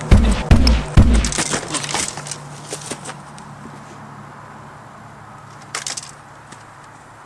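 Three heavy thumps about half a second apart, then a couple of seconds of cracking and clattering that dies away, leaving a faint steady hum.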